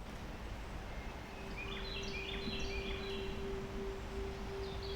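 Bird song: a quick run of short, stepped chirping notes for about a second and a half, over a steady low tone that comes in about a second in.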